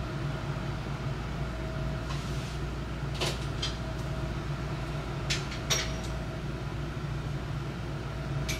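Steady low hum of a running dishwasher, with a few light clicks and taps as a dish towel is folded and hung on an oven door handle, two of them a little after three seconds in and two more past five seconds.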